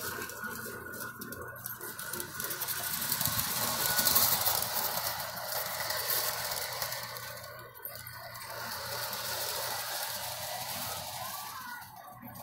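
A model train running on the village layout's track, a steady rattling clatter that grows loudest about four seconds in, dips near eight seconds, then swells again as it circles.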